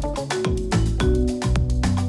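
Background music with a steady drum beat, deep falling bass-drum hits and sustained melodic notes.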